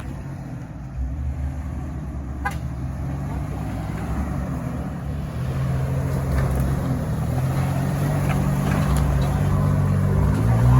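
Off-road 4x4 vehicle's engine working under load on a rocky hill climb, growing steadily louder as it comes closer, its pitch rising near the end as it revs.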